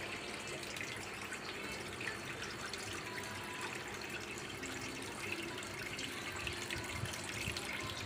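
Small homemade cement tabletop fountain running: water trickles down its tiers and splashes from small spouts into the basin, a steady trickling and splashing.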